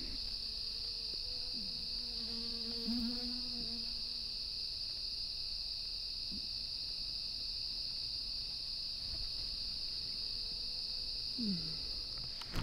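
Night chorus of crickets: a steady, unbroken high trill, with faint lower tones coming and going beneath it.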